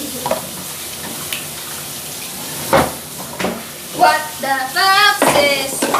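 Food sizzling in a pot on a gas stove, a steady hiss, with two knocks of cookware about three seconds in. A woman's voice comes in near the end.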